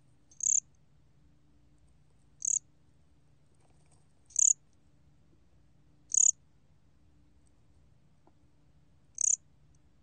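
A gom-gwitturami cricket (곰귀뚜라미) calling, recorded at 23 °C. It gives five short, high chirps spaced roughly two seconds apart.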